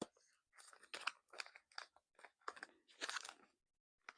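Packaging handled by hand: irregular crinkling, scratching and small clicks as a piece is worked out of its packing.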